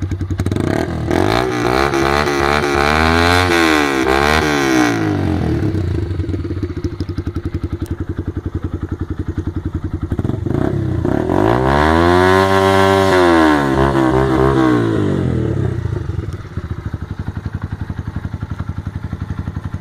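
Yamaha Factor 125's single-cylinder four-stroke engine, carburetted and fitted with a Roncar sport exhaust, idling and being revved: two quick revs in the first few seconds, back to idle, then one longer rev from about eleven seconds in before dropping back to idle. The exhaust note is muffled and quite loud.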